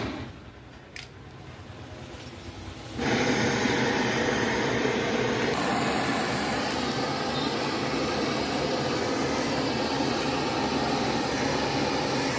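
Hose-fed gas blowtorch flame singeing a plucked duck: a steady rushing hiss that jumps suddenly to a much louder, even rush about three seconds in and holds there.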